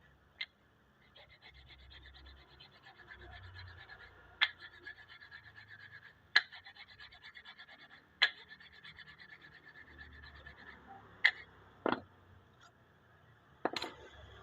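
Quick, rhythmic scraping strokes, several a second, broken by sharp clicks or knocks about every two seconds. Near the end the scraping stops and a few louder knocks follow.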